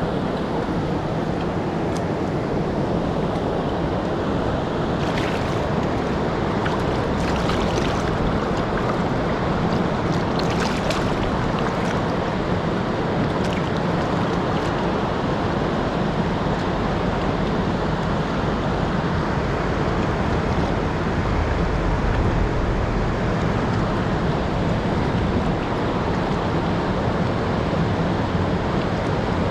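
Truckee River water rushing steadily.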